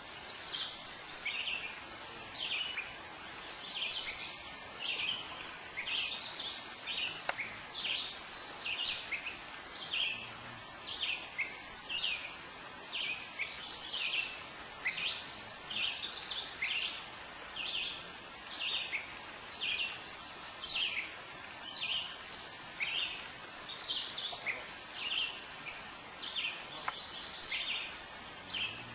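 Canoe paddle strokes: a cluster of small splashes and drips coming off the blade with each stroke, in a steady rhythm of about one stroke a second.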